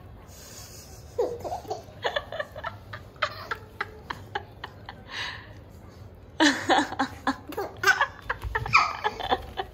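A baby laughing in short repeated bursts from about a second in, loudest in a run of laughs over the last three seconds.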